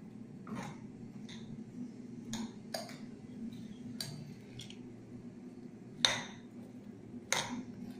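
A spoon scraping and clinking against a bowl in short, irregular strokes as a chunky mashed-chickpea mixture is stirred, the sharpest clink about six seconds in, over a steady low hum.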